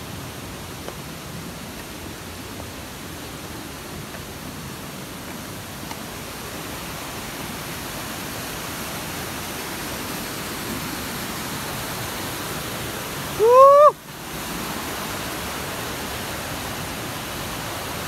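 Steady rush of a waterfall, growing slightly louder partway through. About two-thirds of the way in, one short, loud, high-pitched shout rises in pitch, and then the sound drops out for an instant.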